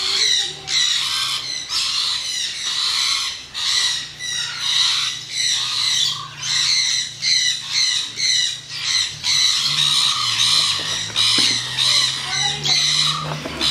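Parrots squawking over and over, harsh shrill calls coming about once or twice a second, over a steady low hum.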